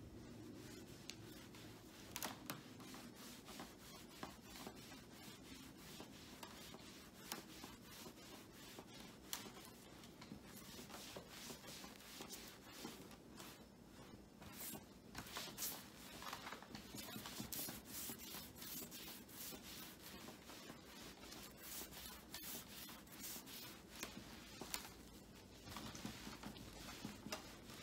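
A cloth wiping a computer monitor: faint, scratchy rubbing in many short, irregular strokes.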